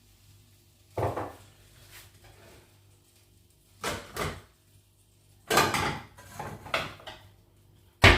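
Kitchen handling sounds: a string of short knocks, clatters and rustles as dishes, utensils and cupboards or drawers are worked, with a sharp, loud knock near the end.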